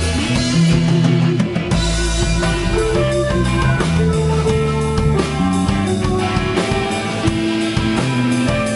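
Rock band playing a passage without vocals: guitar lines over bass and drum kit.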